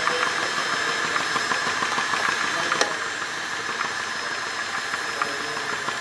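Small Stirling engine driven as a heat pump at around 400 rpm, running steadily with a light mechanical clatter and a steady high hum. A single sharp click comes about three seconds in.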